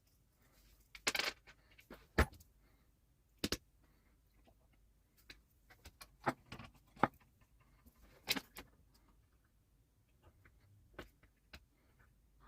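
Irregular sharp clicks and light clinks, a dozen or so scattered with quiet between them: shards of a crushed small glass bulb and a small metal tool knocking together as the glass is picked out of the bulb's base.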